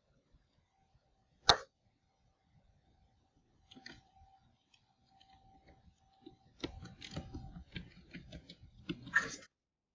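Computer keyboard being typed on, a quick run of key clicks in the last third, after one sharp single click a second and a half in. A faint steady hum sits underneath.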